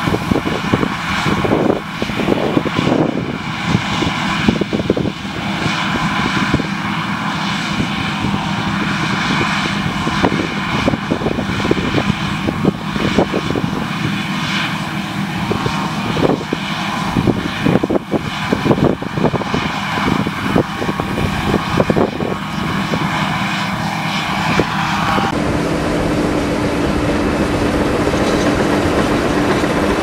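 John Deere combine harvester running as it cuts wheat: a steady machine drone with irregular crackles and bumps. About 25 seconds in the sound switches abruptly to a closer, steadier hum with a low steady tone.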